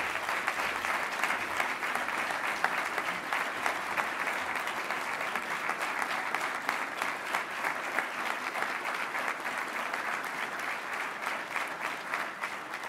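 Audience applauding steadily with dense clapping, beginning to die down near the end.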